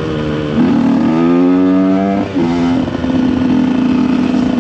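KTM EXC 125 two-stroke single-cylinder engine riding along: the revs jump about half a second in and climb under throttle, then drop sharply a little past the middle and settle to steady running at lower revs.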